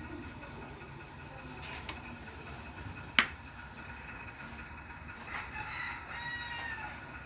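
A rooster crowing once, a long call starting about five seconds in, over a low steady rumble. A single sharp click about three seconds in is the loudest sound.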